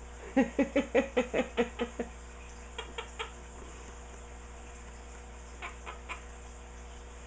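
Quaker parrot (monk parakeet) calling in a quick run of about nine short, repeated notes, followed by two fainter groups of three.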